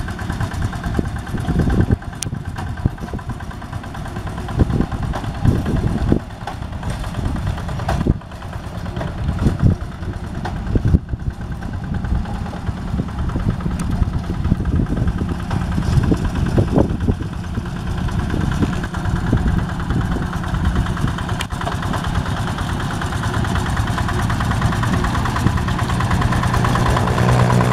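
Yanmar two-wheel hand tractor's single-cylinder diesel engine running steadily under load, pulling a plow through paddy mud, with scattered knocks over the first half. The engine's beat grows louder and clearer near the end.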